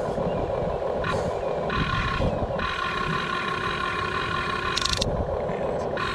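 1/24 scale CAT 336 RC excavator working, its small electric motors and gearboxes whining steadily as the arm and bucket move. The whine swells and changes a few times as different functions switch on and off.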